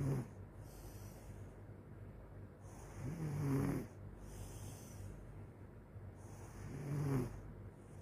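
A sleeping person snoring: three snores about three and a half seconds apart, each rising and falling in pitch.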